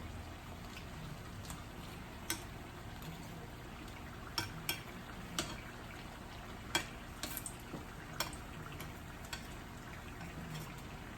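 Turon (plantain and jackfruit rolls in wrappers) frying in a pan of oil, with a steady sizzle and a few sharp clicks, most between four and nine seconds in.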